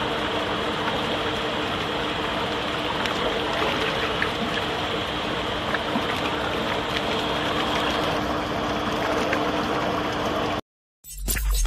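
Wafer batter mixer running: a steady machine hum with the wet churning of thick batter in its stainless steel tank. It cuts off abruptly near the end.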